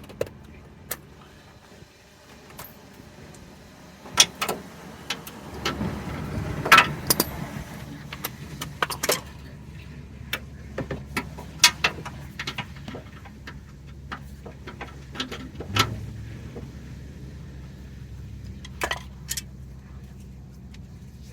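Metal tools clinking and knocking as a socket and hardware are worked onto the bottom bolt of a car's steering idler arm: scattered sharp clicks, busiest a few seconds in, over a faint steady low hum.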